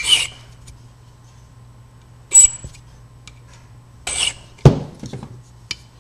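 A few short, separate strokes of a small file on a key blank, marking where the impressioning cuts go, with a sharp knock a little past the middle and a few light clicks after it. A low steady hum sits underneath.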